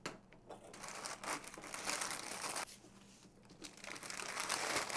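Wax paper and a brown paper bag crinkling and rustling as they are handled, in two stretches with a brief pause a little past the middle.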